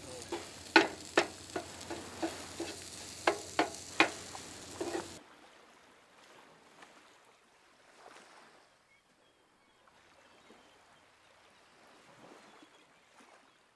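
Eggs and diced steak sizzling on a griddle over a Coleman two-burner propane stove, with a metal spatula clicking and scraping against the griddle several times. The sound cuts off sharply about five seconds in, leaving near silence.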